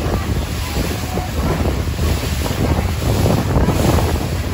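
Wind buffeting the microphone and water rushing past the hull of a speedboat under way: a loud, steady rush with a heavy low rumble.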